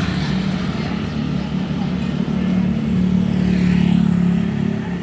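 Motor vehicle engine running steadily in road traffic, growing louder about three to four seconds in.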